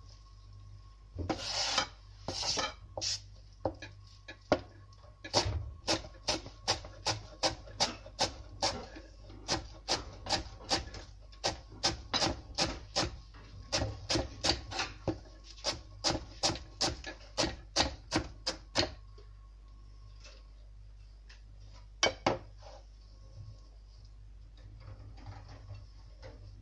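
Kitchen knife chopping fresh coriander leaves on a cutting board: a few scattered strokes, then a long steady run of quick knocks, about three a second, that stops about three quarters of the way through, with a last double knock later.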